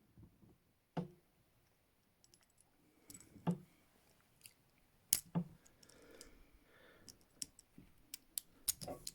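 TCH 840 handcuffs being unlocked with their key: a few separate metal clicks and knocks, then a quicker run of small clicks over the last two seconds as the lock is worked.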